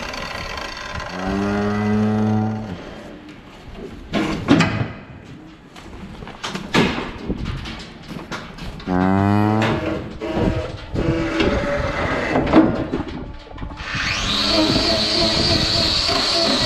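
A cow in a metal hoof-trimming chute mooing twice, long low calls, with sharp knocks and clatter in between. Near the end a steady mechanical whine starts up and keeps going.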